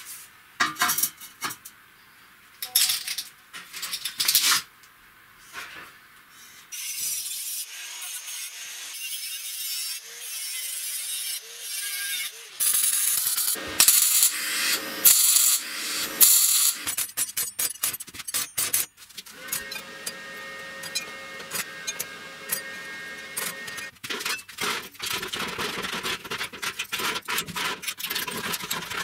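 Steel workshop sounds in sequence: steel bar and square tubing clanking, then loud bursts of welding crackle, a stretch of steady whine, and near the end the repeated snipping of tin snips cutting corrugated steel sheet.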